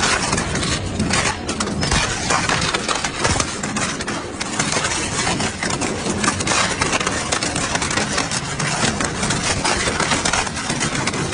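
Double-shaft shredder's hooked cutters crunching and snapping hard plastic parts, a dense, irregular run of cracks over the machine's running noise.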